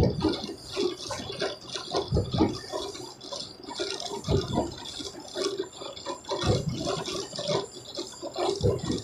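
Large corrugated cardboard sheets being flipped, slid and dropped onto a stack, with a heavier thud about every two seconds, over the steady noise of a running box-pasting machine.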